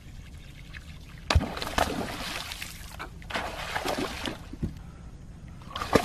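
Water splashing and sloshing in several bursts, the first about a second in, over a steady low hum.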